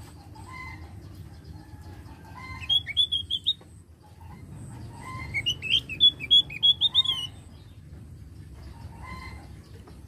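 Javan grey-throated white-eye (opior jawa) singing two bursts of rapid, high chattering notes: a short one about three seconds in, and a longer one from about five to seven seconds that climbs in pitch. Fainter short chirps sound between the phrases.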